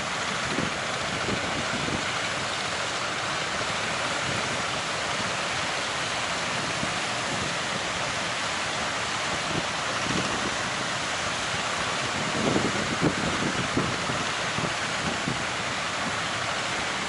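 Steady rush of surf and strong wind, with gusts buffeting the microphone now and then, most strongly about twelve seconds in.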